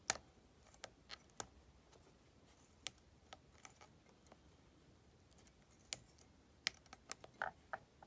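Lock pick and tension wrench clicking and scraping inside the keyway of a pin-tumbler disc padlock as it is picked, in irregular sharp metal ticks. A quick cluster of clicks near the end includes a brief metallic ring.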